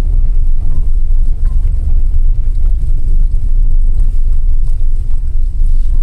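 A car driving, heard from inside the cabin: a steady low rumble of engine and road noise.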